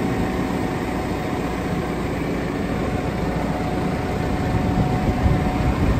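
Tractor's diesel engine idling steadily close by, with a thin steady whine over it; slightly louder in the last second.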